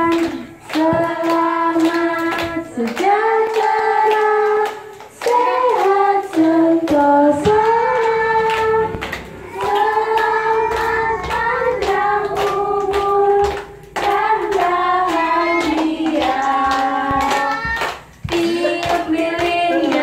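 A group of children and women singing a song, with hands clapping along in a steady beat.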